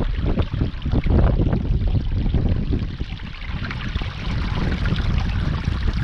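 Strong wind buffeting the microphone, a heavy low rumble that swells and eases in gusts, dipping a little about halfway through.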